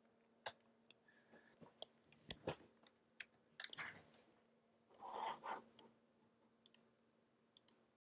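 Near silence: a few faint, scattered clicks and taps over a faint steady hum, with a soft rustle about five seconds in.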